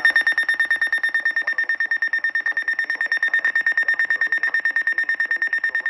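Electronic alert beeper of a NOAA weather radio receiver sounding: a loud, high-pitched beep pulsing rapidly and evenly, the receiver's alarm for a flash flood warning.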